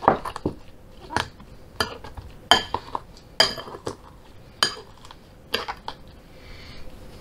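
Potato masher crushing frozen cranberries with sugar, knocking against the dish about ten times at an uneven pace of roughly one stroke every second or less.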